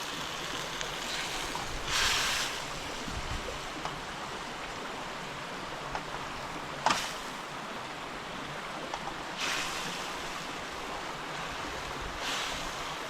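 Pork and sauce sizzling and simmering in a pan over high heat, a steady hiss with a few louder sizzling surges and one sharp click about seven seconds in.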